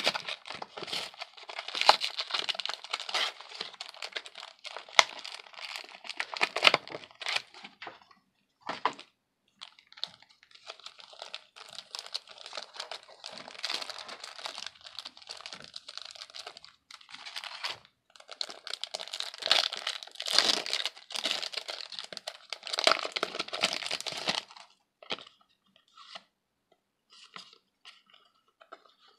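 Foil Yu-Gi-Oh booster pack wrapper crinkling and tearing as it is handled and opened by hand. Near the end, only lighter clicks of the trading cards being slid apart.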